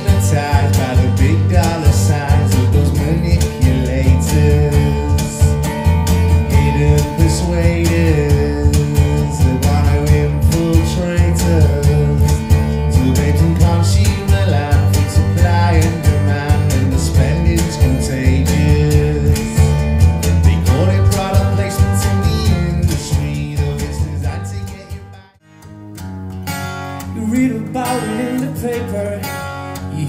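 Music with a heavy bass line and guitar; it stops abruptly about 25 seconds in, and a new piece starts with guitar.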